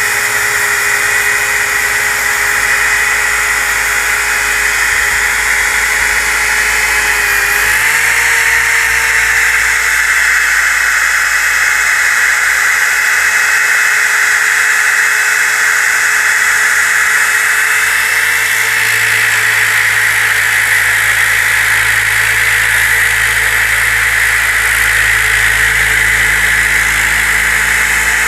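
DeWalt DWE6401DS disc sander running steadily under load with a high whine, sanding glue squeeze-out off the face of a wooden board. Its pitch sags for a moment about seven seconds in, then settles a little higher.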